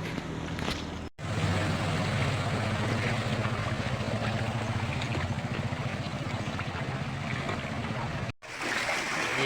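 A small engine running steadily through rushing floodwater, the water's wash heard under the engine's low hum. The sound drops out briefly twice, about a second in and near the end.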